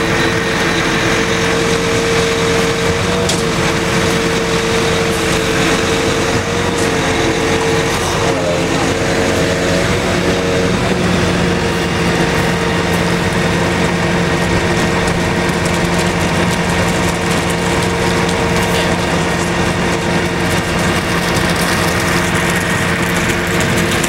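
Concrete pump truck's diesel engine running steadily as concrete is pumped through the hose onto the slab. Its pitch wavers briefly about eight to ten seconds in, then settles.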